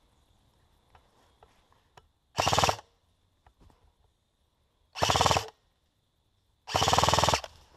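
Airsoft HK416 replica firing three short full-auto bursts in rapid rattling strings, about two and a half seconds apart, the last burst the longest.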